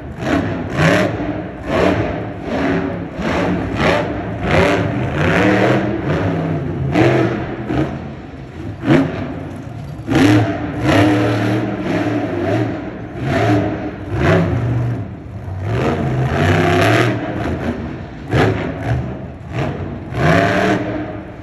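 Monster truck's supercharged V8 engine revving again and again, its pitch climbing and dropping with each burst of throttle.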